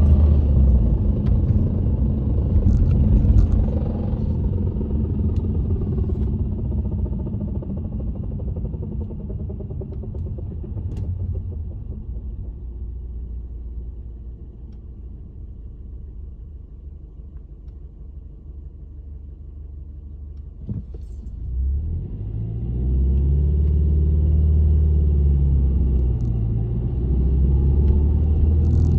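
Subaru Legacy B4 BL5's flat-four running with a low rumble: an abnormal noise whose cause the owner does not know. The rumble fades over the first half, and a single sharp knock comes about 21 seconds in. From about 22 seconds the rumble swells again, its pitch rising and falling.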